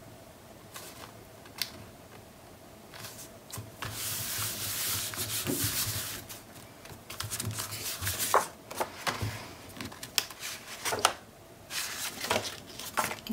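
Hands working sheets of patterned scrapbook paper: a long rubbing hiss as the paper is smoothed flat with the palms, then rustling, sliding and small taps as sheets are lifted and moved about.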